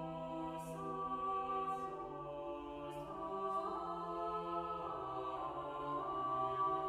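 Background music: a wordless choir holding slow, sustained chords that change every second or two.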